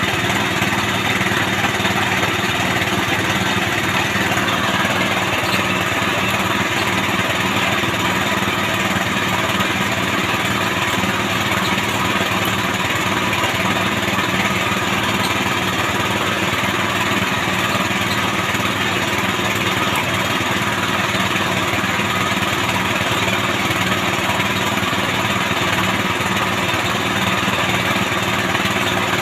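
Small petrol engine of a bore-well drilling rig running steadily at constant speed.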